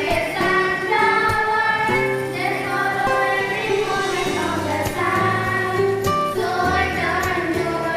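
A group of schoolchildren singing together in chorus, holding each note of a slow melody.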